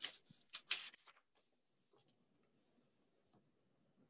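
Pages of a paperback book being flipped, a few quick paper rustles in the first second while searching for a passage, then near silence.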